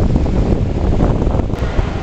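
Wind buffeting the camcorder's microphone in a heavy, uneven low rumble, with the wash of breaking surf behind it.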